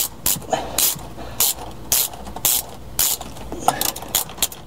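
3/8-inch-drive Snap-on ratchet with a Torx T55 socket driving in a seat-belt anchor bolt: a short run of pawl clicks on each back-stroke, about two strokes a second.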